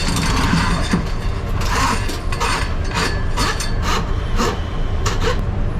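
A steady low motor hum under irregular scraping and rubbing strokes.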